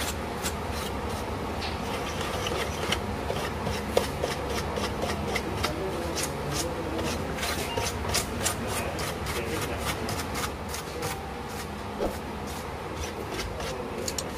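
Irregular plastic clicks and scraping as a laptop's plastic chassis and parts are worked over with a plastic pry tool and gloved hands, a sharp click about four seconds in and another near twelve seconds, over a steady low hum.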